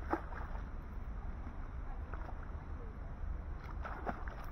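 A few short clicks and rattles from a spinning fishing reel being handled, one just after the start and a cluster near the end, over a steady low outdoor rumble.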